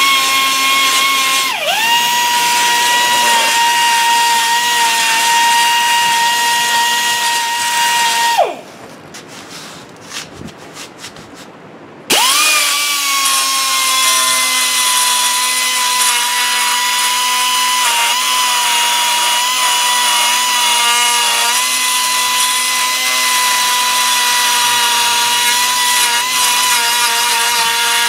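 High-speed rotary power tool running with a steady whine while cutting the sheet-metal guard, briefly dipping in pitch under load. It winds down about eight seconds in, then spins back up about four seconds later and runs on.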